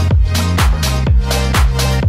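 Upbeat electronic dance music in a house style, with a steady kick drum about two beats a second, sharp off-beat hits between the kicks and a sustained bass line that changes note just under a second in.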